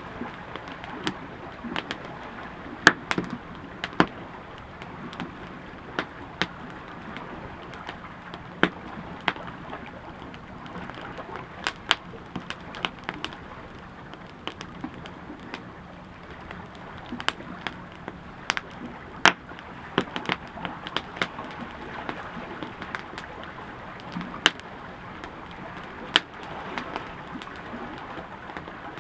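Wood campfire crackling: a steady low rustle of burning with frequent sharp, irregular pops and snaps.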